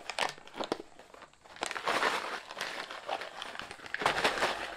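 Crinkling and rustling of a freeze-dried meal pouch being handled as its base corners are pulled open, with louder rustles about two seconds in and again near the end.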